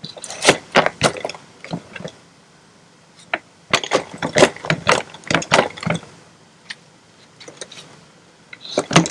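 Kayak inflation pump and its hose fitting being worked in two bursts of quick, sharp strokes, while the pump is set to deflate by mistake.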